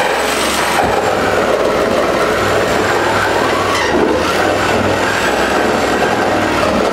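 Electric jigsaw running steadily as it cuts through a wooden floorboard, with a faint high whine that wavers slightly in pitch.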